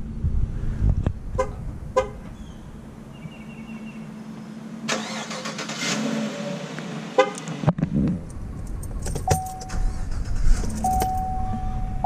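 Clicks and a hiss, then a steady electronic chime from a 2016 Chevrolet Silverado's instrument cluster: it sounds briefly, then comes back about a second later and holds.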